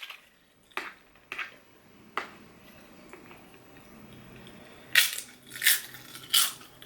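Crisp food being bitten and crunched close to the microphone: a few faint crunches in the first couple of seconds, then three loud crunches about two-thirds of a second apart near the end.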